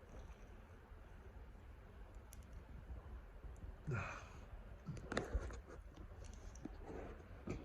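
A man sighing and breathing hard while chugging soda, with small clicks and mouth sounds; the loudest breath comes about four seconds in.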